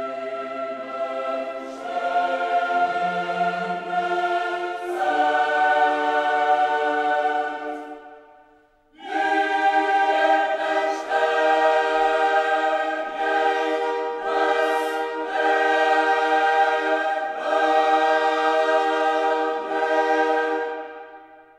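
Background music: a choir singing long, held chords that change every few seconds, with a short break about eight seconds in before the singing resumes.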